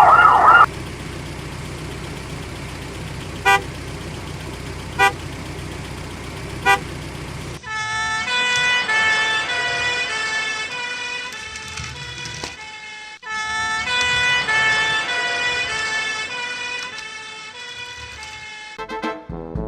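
A toy ambulance's electronic siren wailing, cutting off within the first second. A steady low hum follows with three short beeps, then a melody of clear high notes plays from about eight seconds in.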